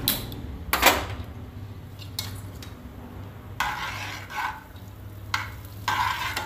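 Two sharp clicks in the first second as a hand-held gas lighter relights the stove burner, then a spatula scraping and stirring butter cubes melting in a frying pan in short repeated strokes, over a steady low hum.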